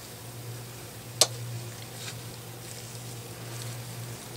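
A single sharp click about a second in, from small airgun valve parts being handled, over a steady low hum.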